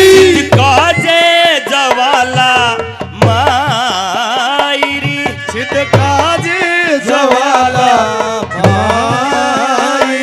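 Haryanvi ragni folk music performed live and amplified: a voice singing a wavering melody over melodic accompaniment, with a drum striking a steady beat.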